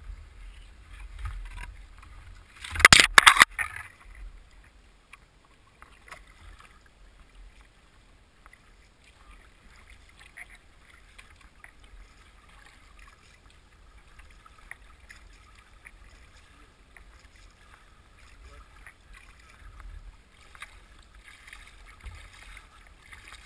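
Canoe moving on river current, water rippling and lapping faintly at the hull, with a low rumble of wind on the microphone. About three seconds in comes a quick cluster of loud knocks, the loudest sound.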